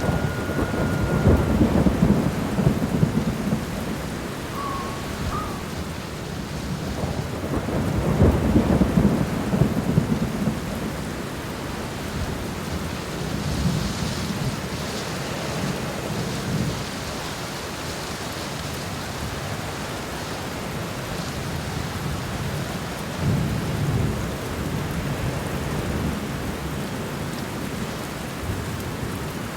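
Heavy rain falling steadily, with low rolls of thunder swelling and fading about two seconds in, again about eight to ten seconds in, and more briefly about three quarters of the way through.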